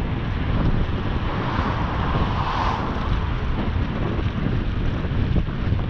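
Wind rumbling on the camera microphone of a moving bicycle, steady and heavy, with the noise of a passing motor vehicle swelling and fading in the middle.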